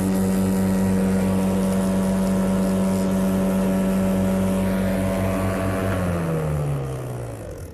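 Spindle moulder with a 4-inch cutter block running free at speed, a steady whine with a strong low hum. About six seconds in the machine is switched off and runs down, its pitch falling and the sound fading as the block slows.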